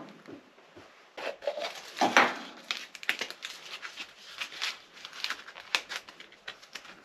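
Crinkling and rustling of a small white bag being unwrapped by hand, with irregular handling clicks.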